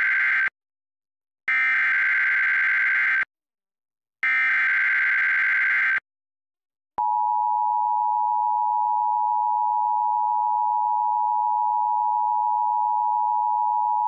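Emergency Alert System broadcast: the SAME header's digital data bursts screech three times, the first already under way, each with a short silence after it, then the two-tone EAS attention signal starts abruptly about halfway through as one steady, two-pitched tone. Together they signal the start of a severe thunderstorm warning.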